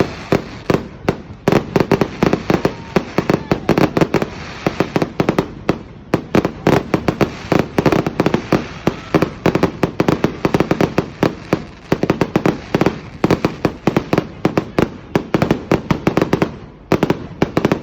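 Fireworks going off in a rapid, continuous string of sharp bangs and crackles, several a second, with brief let-ups.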